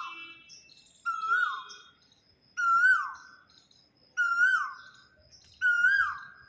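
Male Asian koel calling its two-part 'kuhu', repeated about every one and a half seconds. Each call rises and then drops sharply. Small birds chirp faintly and higher-pitched alongside.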